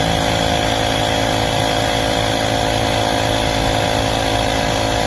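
KeenPower 21 V cordless tire inflator's compressor running steadily with a loud, even buzzing drone.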